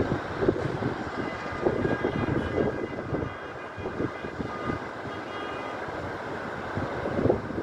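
Strong wind buffeting the microphone in irregular low thumps, over the steady rush of cars speeding past on a road.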